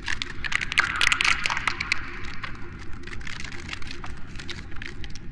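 Cinematic sound effect: dense crackling and snapping over a low rumble, loudest about a second in and thinning toward the end.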